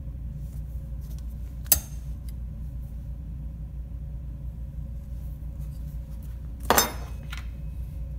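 Light metal clinks over a steady low hum. There is a single sharp click about two seconds in, then a louder double clink near the end, as a steel ruler and metal orthotic stirrup are handled on the bench.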